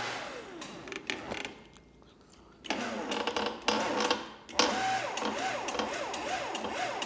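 JD2 Model 32 tube bender's powered hydraulic drive running under load as it bends steel tubing toward 53 degrees. It runs for a couple of seconds, pauses briefly, then starts again with a rhythmically wavering pitch, with some knocks from the camera being handled at the start.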